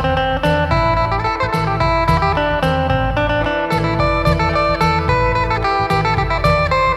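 Isan phin (Thai plucked lute) played through a contact pickup: a quick plucked melody over a steady low drone.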